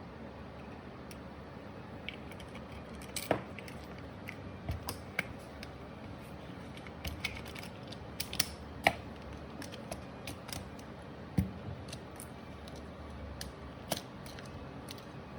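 Irregular light clicks and knocks of small plastic and metal parts of a Bosch GSR 10.8-2-li cordless drill being handled during repair, over a steady low hum.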